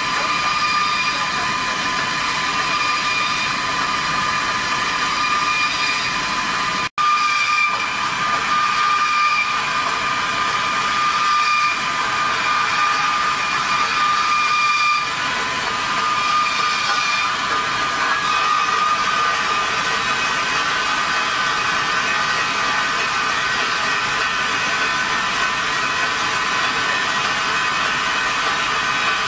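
Diamond wire saw cutting dry through a steel H-beam: a steady high whine over a hiss of the beaded wire grinding the steel. The sound cuts out for a split second about seven seconds in.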